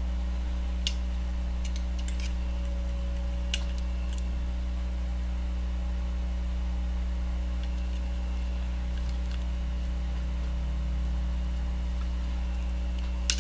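Steady low electrical hum, with a few faint light clicks from fly-tying tools being handled as a turkey biot is wrapped onto the hook; one slightly sharper click near the end.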